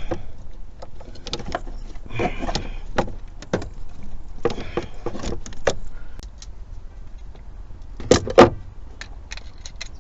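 Hand tools clinking and scraping against metal engine parts, in irregular clicks and clanks, with two loud knocks close together about eight seconds in.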